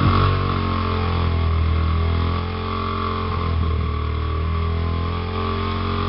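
Small engine of a mini dirt bike running steadily just after a cold start with the choke on, its note dipping slightly a couple of times.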